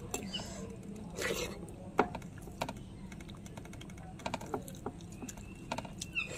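Bare hand mixing wet rice and dal on a steel plate: soft squishing of the rice with scattered sharp clicks of fingers against the metal plate, the strongest about two seconds in and a quick cluster a little after four seconds.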